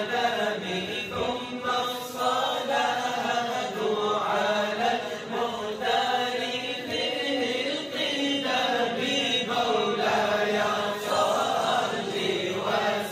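Chanting vocals of a naat, an Islamic devotional song in praise of the Prophet, sustained voices with no words made out.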